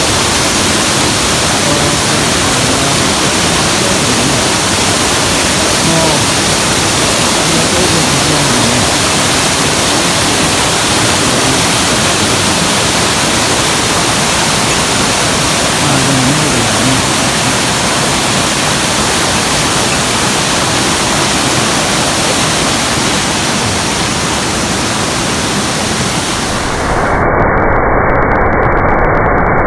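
A waterfall's loud, steady rush of falling water. About 27 s in, the sound changes suddenly: the hiss drops away and a duller, lower rush carries on.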